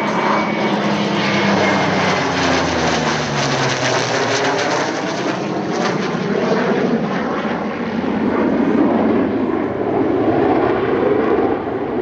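A CF-18 Hornet twin-jet fighter and a P-40 Kittyhawk propeller fighter flying past in formation. Their engine tones drop in pitch as they pass in the first few seconds. The jet noise carries on and builds again toward the end.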